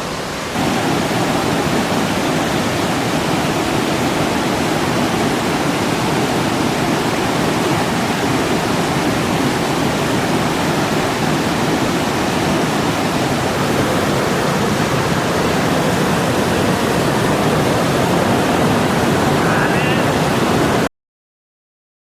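Waterfall rushing in a loud, steady roar of water that steps up a little about half a second in, then cuts off suddenly near the end.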